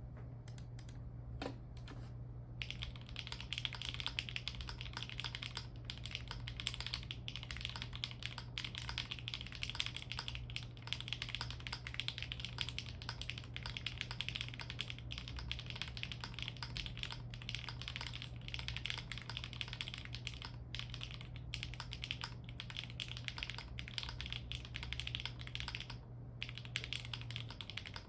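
Continuous fast typing on a foamless Akko ACR Alice Pro mechanical keyboard with an aluminium plate, HMX Cheese switches and doubleshot ABS Cherry-profile keycaps, giving a dense run of key clacks. The typing is sparse for the first couple of seconds, then turns steady and dense. A low steady hum runs underneath and stops near the end.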